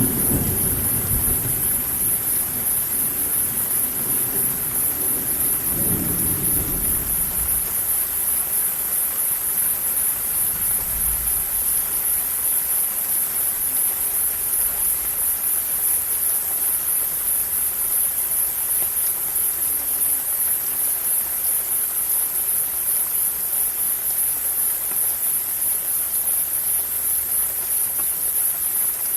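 Steady rain falling, with a constant high hiss over it. A low rumble dies away over the first seven seconds.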